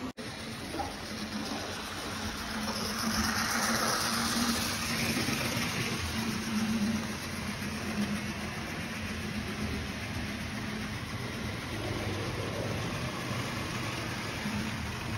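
Model trains running on the layout's track: a steady rolling rumble with a low hum. It grows brighter and a little louder about three to five seconds in.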